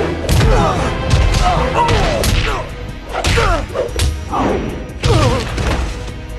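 Animated fight-scene sound effects: a run of heavy hits and crashes, about one a second, each with a falling sweep, over background music.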